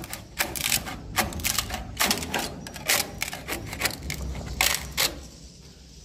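A hand-held scraping tool prying and scraping swiftlet nests off wooden roof beams: a quick, irregular run of scrapes and clicks that stops about a second before the end.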